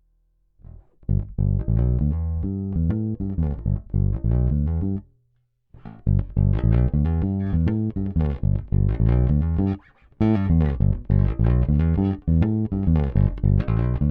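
Electric bass strung with Blacksmith strings, played in quick runs of plucked notes, with a short break about five seconds in.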